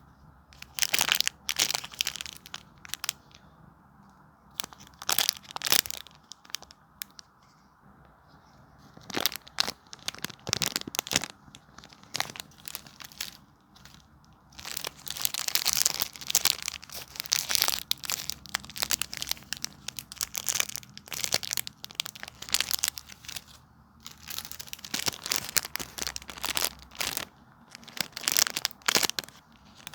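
Homemade squishies being squeezed and handled, crinkling and crackling in bursts with short pauses between.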